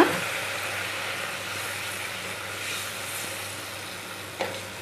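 A pan of fried spice paste hissing and sizzling as just-added hot water hits the hot oil, the sizzle slowly dying down; a light tap about four and a half seconds in.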